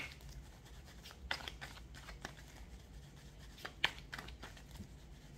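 Faint handling of tarot cards: a few soft clicks and light rubs of card stock, scattered irregularly.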